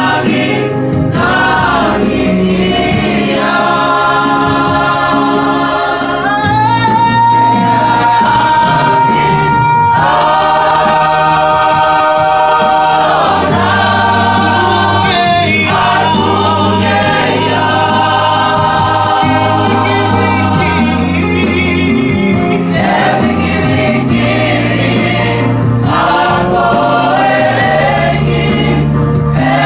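A mixed choir of men's and women's voices singing a hymn in parts, in Tongan. About seven seconds in, a high note is held for some three seconds.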